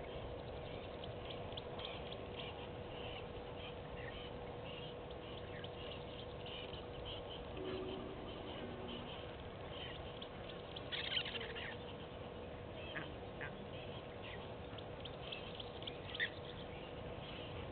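Outdoor bush ambience: a steady background hiss with many short, high bird chirps. One louder call comes about two-thirds of the way through, and a couple of short sharp calls follow near the end. A faint steady hum runs underneath.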